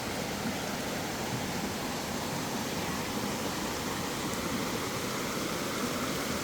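Stream water rushing and splashing steadily over rocks, a constant even rush.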